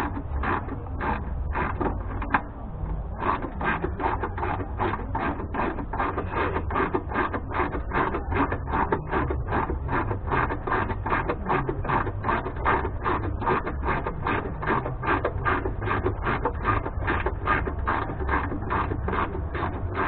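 Hand ratchet clicking in steady, even strokes, about three to four clicks a second, as a fastener is worked down, with a brief pause a couple of seconds in.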